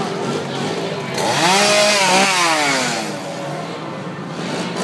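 Chainsaw revved once about a second in: its pitch climbs quickly, then falls away as the throttle is let go.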